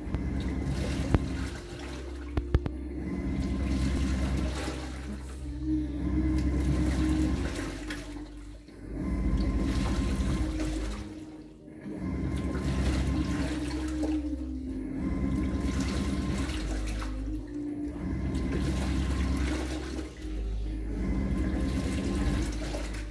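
Panasonic VR1 top-loading washing machine on its delicate cycle, filling and agitating. The motor drives the wash in strokes that swell and pause about every three seconds, with water sloshing in the tub and rushing in from the inlet.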